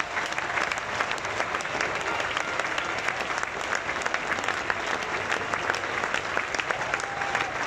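Grandstand crowd applauding: many hands clapping in a dense, steady patter that holds at an even level throughout.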